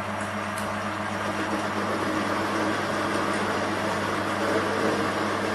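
Gear-head metal lathe running with a steady hum, its carbide insert turning forged steel on a medium power-feed pass.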